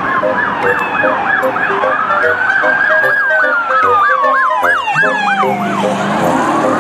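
Police car siren: a fast yelp of about four pitch sweeps a second layered over a slower wail that falls, rises and falls again, dying away near the end.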